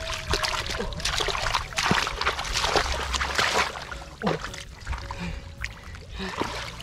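Wet mud squelching and splashing as bare hands dig and scoop through a waterlogged paddy, in repeated bursts that are loudest in the first few seconds.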